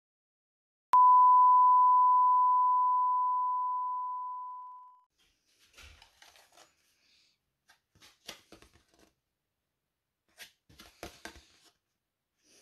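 A single pure, steady ding that starts sharply about a second in and fades out over about four seconds. After it, faint crinkling and rustling of a plastic bag and paper leaflet being handled.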